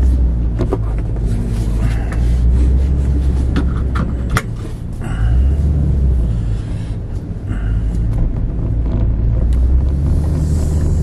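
Low rumble of a Toyota pickup truck's engine and tyres, heard from inside the cab while driving, rising and falling a few times, with scattered small clicks and knocks.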